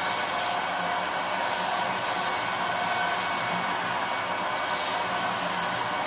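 A 1988 Goblin Solo 302A cylinder vacuum cleaner running steadily, its floor tool worked back and forth over grit-strewn carpet: an even rushing hiss of airflow with a few faint steady whining tones from the motor.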